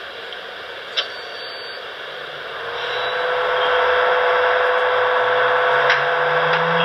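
Sound system of an HO scale GG1 electric locomotive model playing electric-locomotive sounds through its small speaker. There is a click about a second in. A couple of seconds later a steady hum comes up, and a low tone slowly rises in pitch, like equipment spooling up.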